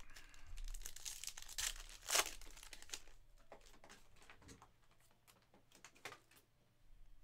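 Trading-card pack wrapper crinkling and tearing open, loudest in one sharp rip about two seconds in. Then the cards are handled with light scattered clicks and one sharper snap near the end.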